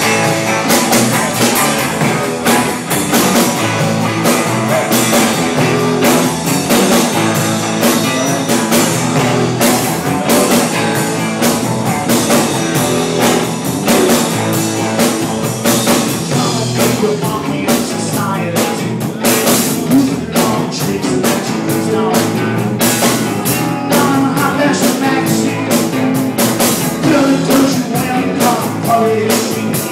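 Live rock band playing loud: electric guitars and a drum kit keeping a steady beat, with a singer's vocals.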